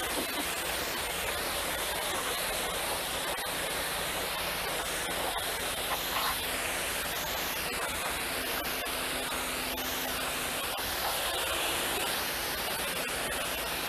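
Steady hiss of water spraying while a vehicle is washed, the high part of the sound swelling and fading as the spray is swept across surfaces.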